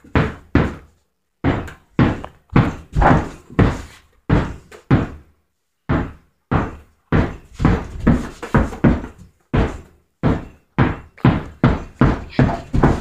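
Basketball dribbled hard on a carpeted floor: a run of thudding bounces about three a second, broken by a few short pauses.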